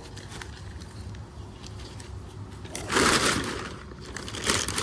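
Packing material around bare-root trees being handled: two rustling, crinkling bursts, a longer one about three seconds in and a shorter one near the end.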